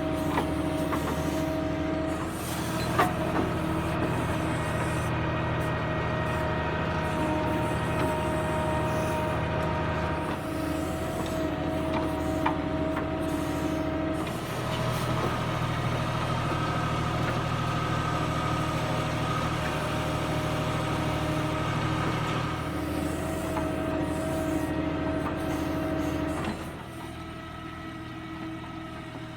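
Diesel tractor engine running a backhoe loader attachment. Its note shifts up and down several times as the hydraulics take and release load, with a couple of sharp knocks, and it drops back near the end.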